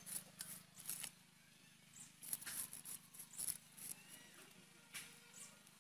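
Spotted snakehead fish being scraped and cut against the edges of two curved iron boti blades: irregular short scraping strokes, several a second, over a faint steady low hum.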